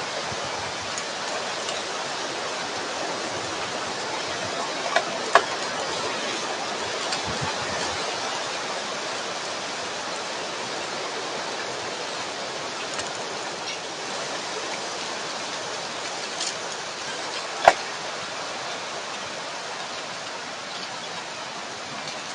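Steady hiss with a few short, sharp bursts: two close together about five seconds in and a louder single one near eighteen seconds, a buck sneezing.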